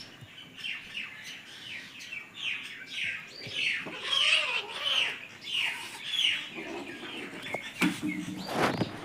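Kittens mewing over and over in short, high-pitched calls, about two a second, with one lower, longer meow about four seconds in. A few sharp knocks near the end.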